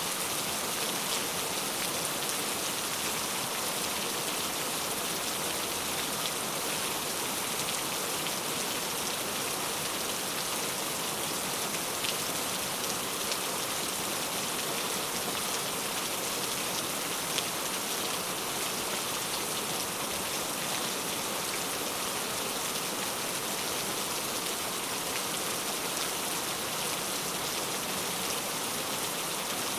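Heavy rain falling steadily, an even hiss with scattered drop ticks.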